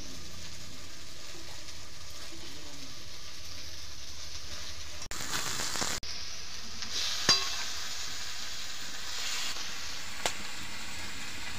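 Onions and spices frying and sizzling in oil in a kadai while a metal spatula stirs and scrapes them. There is a sharp clink about seven seconds in and a lighter one near the end, and the sizzle drops out briefly twice around the middle.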